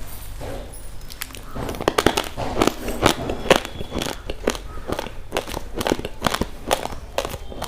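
Raw rice grains being chewed and crunched between the teeth: a rapid, irregular run of sharp cracks starting about a second in.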